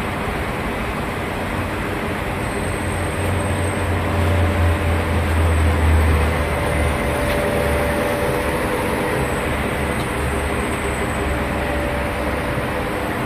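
Amada CRA-300 band saw running under test: a steady mechanical noise with a low hum that swells a few seconds in, and a faint steady whine joining about halfway.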